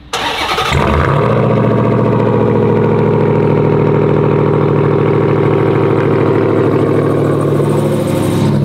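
Ram TRX's supercharged 6.2-litre Hemi V8 cold-starting through a Corsa Extreme exhaust. It fires at once, builds over about a second, then holds a steady, loud idle.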